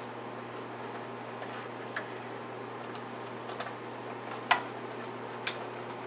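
Spatula knocking and clicking against the side of a metal cooking pot as rice is stirred: a few scattered sharp knocks, the loudest about four and a half seconds in.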